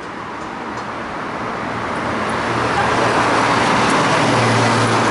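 A motor vehicle on the road coming closer: its tyre and engine noise grows louder over the first three seconds, then holds loud with a low, steady engine hum.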